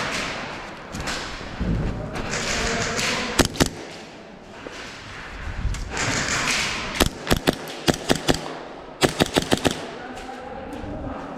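Airsoft guns firing in strings of sharp cracks: two shots about three and a half seconds in, then about six in quick succession around seven to eight seconds, and another rapid string of about six just after nine seconds.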